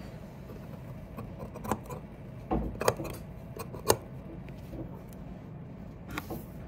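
Dressmaking shears cutting thin, slippery fabric: a few sharp clicks of the blades, the loudest about four seconds in, over a low steady background hum.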